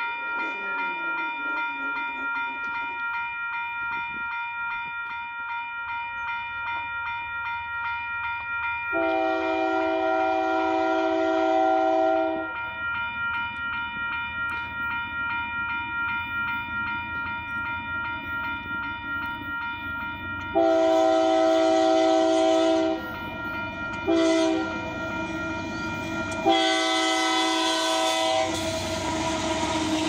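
Railroad crossing bell ringing steadily as a Union Pacific freight locomotive approaches and sounds its air horn for the crossing: two long blasts, a short one and a long one, the standard grade-crossing signal. Near the end the locomotive reaches the crossing with a loud rumble of engine and wheels.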